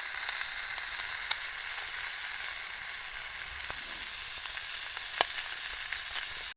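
Wood fire burning with a steady crackling hiss and a few sharp pops, the loudest about five seconds in.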